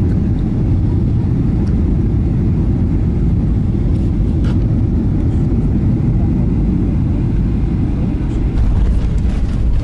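Airliner cabin noise on final approach to landing: a steady, deep rumble of engines and airflow, a little louder about eight and a half seconds in.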